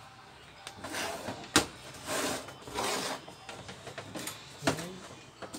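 Handling noises around an electric stand fan on a wooden workbench as it is readied for a test run: a sharp mechanical click about one and a half seconds in, a few short rustling hisses, and a smaller click near the end.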